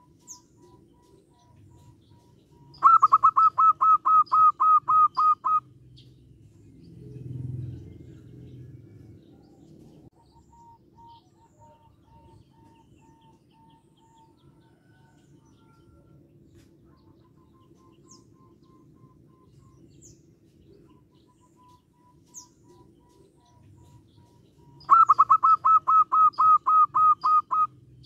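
Zebra dove calling: two bouts of song, each a rapid run of about a dozen clear, evenly spaced notes lasting under three seconds. One comes about three seconds in and one near the end.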